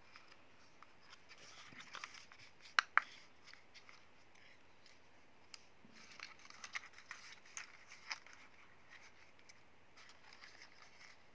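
Plastic folding arms of a small DroneX Pro quadcopter being swung open by hand: two sharp clicks close together about three seconds in, then a run of smaller clicks and rubbing a few seconds later.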